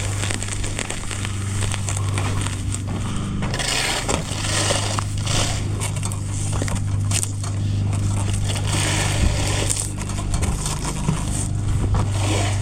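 Repeated scraping and swishing strokes of a broom and shovel working loose debris over the ground, with an engine running steadily underneath as a low hum.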